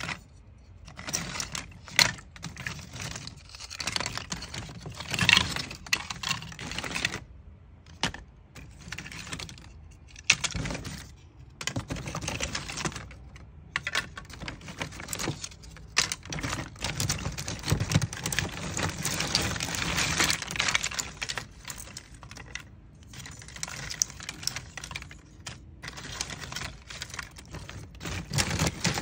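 Dry agarwood chips clattering and rustling as a hand rummages through a heap of them in a plastic tub: dense, irregular light wooden clicks in bursts with short pauses between.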